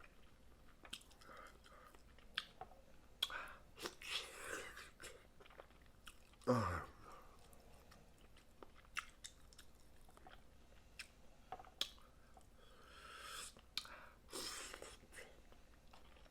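Close-up eating of steamed snow crab: chewing and sucking meat, with scattered small clicks and cracks of shell. About six and a half seconds in comes a short vocal sound falling in pitch, the loudest moment.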